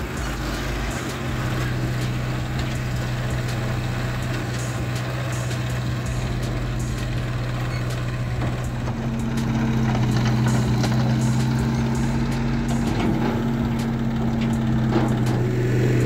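Diesel engines of an Eicher tractor and an L&T-Case 770 backhoe loader running steadily. About halfway through, a second, higher engine note joins and the sound gets louder as the tractor pulls up close.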